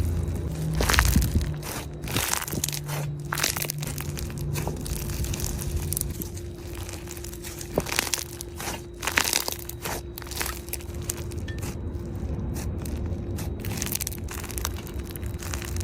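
Slime being squeezed and pressed by hand, with many quick crackling clicks and pops.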